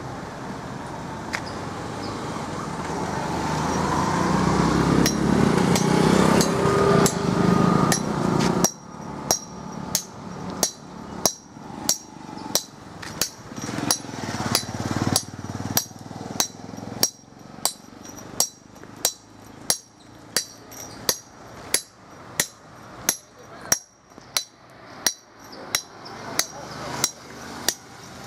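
Road traffic noise swelling as a vehicle passes close. It gives way, about nine seconds in, to a steady run of hammer blows on a steel chisel dressing a stone grinding mortar: sharp ringing taps at about three every two seconds.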